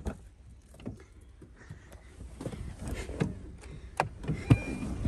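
Knocks and clunks from a snow-covered car as someone gets into it, a few scattered sharp knocks with the two loudest about four seconds in, over a low rumble that grows from about two seconds in.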